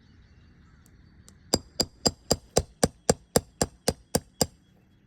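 About a dozen quick metallic hammer taps, roughly four a second, driving a pry bar under an asphalt shingle to reach and loosen a nail.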